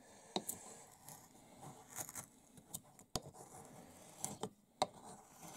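A sharp klyukarza (bent spoon gouge) taking short cuts in wood: a handful of brief, crisp scraping strokes, irregularly spaced a second or so apart.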